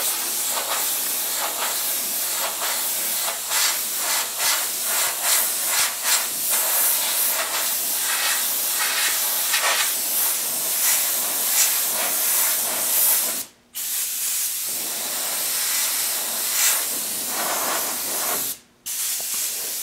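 Airbrush spraying paint: an uneven hiss of compressed air and paint mist that cuts off sharply twice for a moment, the second time near the end.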